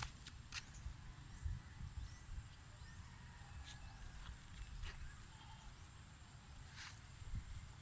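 Faint outdoor field ambience: a steady high-pitched insect drone, with low rumble from wind on the microphone and a few scattered faint clicks.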